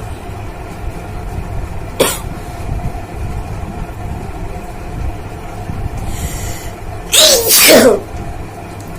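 A woman sneezes once, loudly, about seven seconds in: a sneeze set off by tickling the inside of her nose. A short sharp sound comes about two seconds in, and a faint breathy hiss just before the sneeze.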